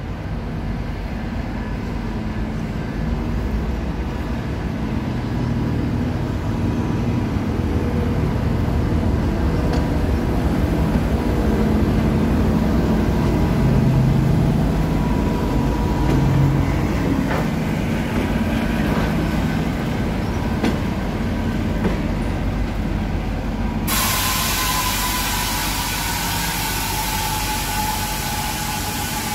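TEP70BS diesel locomotive running past on its way into the station, its engine loudest about halfway through, followed by passenger coaches rolling by. About 24 s in, a hiss starts suddenly with a slowly falling squeal as the train brakes to a stop.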